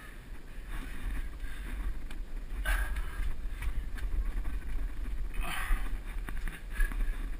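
Steady low rumble of wind and handling noise on a body-worn camera's microphone. Twice, about a third of the way in and again past two-thirds, a short brushing scuff as hands and clothing rub against the gritstone of a narrow rock passage.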